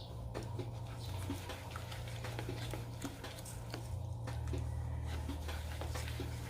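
Light, irregular clicks and taps of a utensil against a mixing bowl as eggs are mixed into mashed banana and sugar, over a steady low hum.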